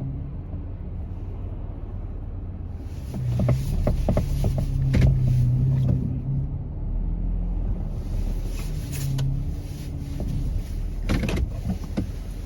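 A car driving with steady low road rumble and engine hum. Several sharp clicks and knocks come about four to five seconds in and again near the end.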